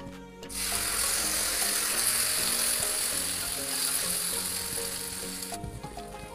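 Grated-potato pancake batter sizzling in hot oil in a frying pan as it is poured in and spread with a wooden spatula. The sizzle starts about half a second in and cuts off suddenly near the end.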